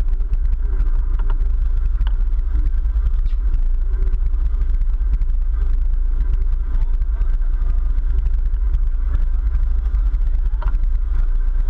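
Sportfishing boat's engines running with a steady low rumble.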